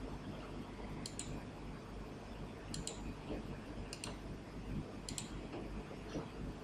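Computer mouse button clicking: four quick double clicks, each a pair of sharp clicks, over a steady low hum.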